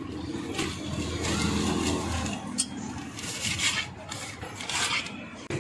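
Paper rustling and crinkling in short, repeated crackles as a burger is wrapped by hand, over a steady low background rumble.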